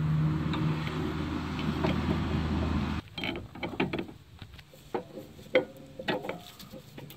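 A steady low rumble for about three seconds, then a run of uneven metal clicks and knocks as a new stabilizer link's threaded stud is worked into its mount on the front suspension.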